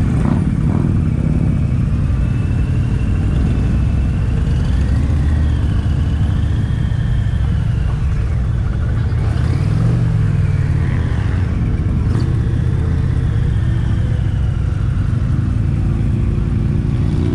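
Indian Pursuit motorcycle's V-twin engine running at low speed, a steady low rumble as the bike rolls slowly, with other motorcycles' engines around it.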